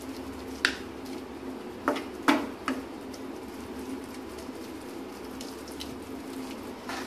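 Wooden spatula stirring okra in a thin mustard gravy in a nonstick kadai, knocking against the pan a few times in the first three seconds, over a steady low hum.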